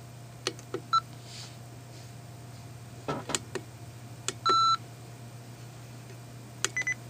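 Short electronic beeps among sharp clicks over a steady low hum. There is a brief beep about a second in, a louder, longer beep a little past four seconds, and a quick higher-pitched pair of beeps near the end.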